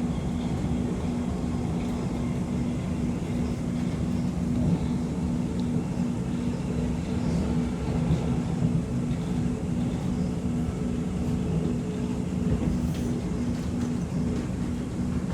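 Cabin noise of a Metro X'Trapolis 2.0 electric train running between stations: a steady rumble with a low steady hum.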